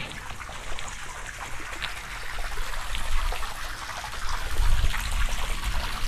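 Water running steadily from a hose into a partly filled Intex frame pool, splashing and trickling into the water as the pool fills.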